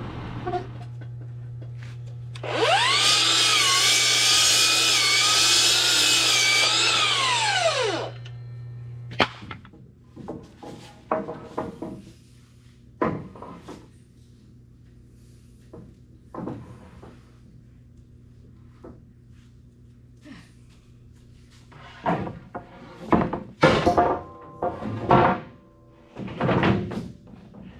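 Band sawmill making a cut through a log: a loud whine with several tones that rises as the blade enters and falls away as it leaves, over a steady engine hum. The hum then stops and wooden knocks and thunks follow, with a flurry of sharp knocks near the end.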